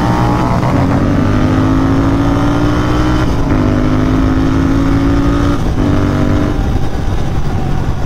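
Royal Enfield 650-twin motorcycle's parallel-twin engine pulling under acceleration, its note climbing steadily. The note breaks and drops lower about three seconds in and again about five and a half seconds in, at the upshifts.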